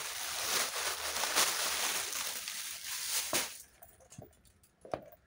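Clear plastic packaging crinkling and rustling as it is pulled and crumpled off a new purse for about three and a half seconds, then a few faint clicks.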